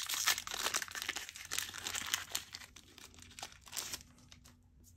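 Foil booster pack wrapper crinkling as it is handled and opened, dense crackling for about three seconds that thins to a few light clicks near the end.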